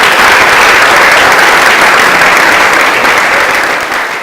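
Audience applauding loudly at the end of a song, a dense steady clapping that begins to fade near the end.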